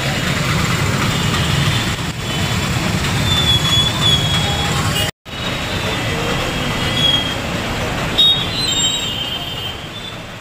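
Busy street traffic of auto-rickshaws and motorbikes: a steady low rumble with high squeaks and chirps over it. It cuts out for an instant about halfway and grows quieter over the last couple of seconds.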